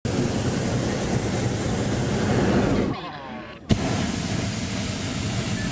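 Hot-air balloon's propane burner firing with a loud, steady rushing roar. It drops out briefly about three seconds in, where faint voices show, and comes back with a sudden click.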